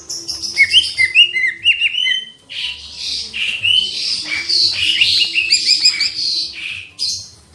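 Cica ijo (leafbird) singing a fast, varied song of high chirps, trills and gliding whistles, with a brief pause about two seconds in; the song stops near the end.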